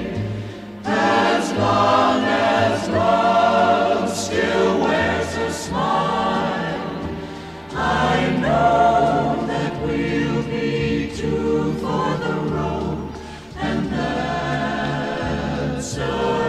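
Background music: choral singing, several voices in phrases over sustained low notes.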